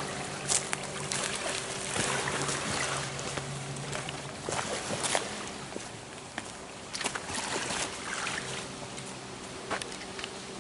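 A steady low engine hum under water lapping and trickling at the shoreline, with scattered sharp clicks and knocks.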